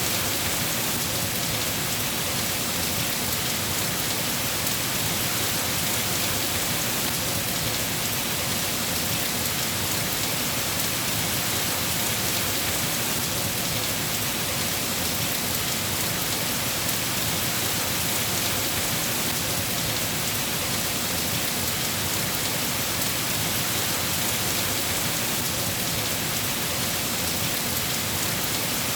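Steady rain falling on a surface, an even hiss of drops with no change or thunderclaps.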